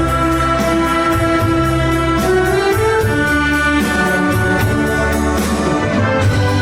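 Wind orchestra playing an arrangement of Korean pop songs: brass and woodwinds holding a melody over a steady beat and bass line.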